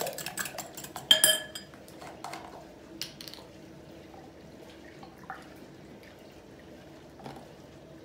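Wire whisk beating egg and oil in a glass bowl, the tines clicking rapidly against the glass, then stopping about a second in with one loud ringing clink as the whisk is set down against the bowl. A few faint knocks follow.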